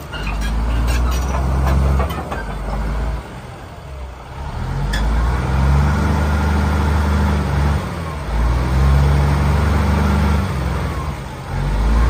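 Komatsu D155AX-3 crawler dozer's six-cylinder turbodiesel being revved up and let back down several times, the engine note swelling and dropping every few seconds.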